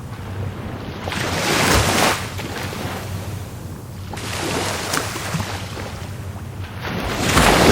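Rough Caribbean Sea waves breaking and washing in, three surges about three seconds apart, the loudest near the end.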